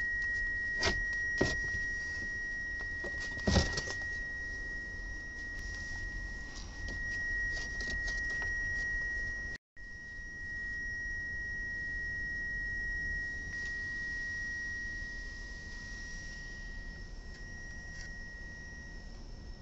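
A steady high-pitched whine runs throughout. A few sharp metallic clinks of hand tools sound in the first few seconds, the loudest about three and a half seconds in.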